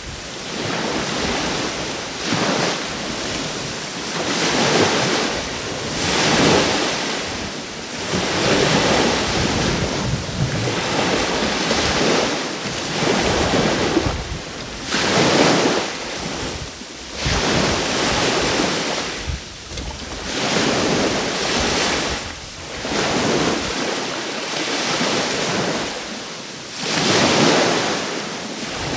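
Small waves breaking and washing on the shore, swelling and falling back every second or two, with wind buffeting the microphone.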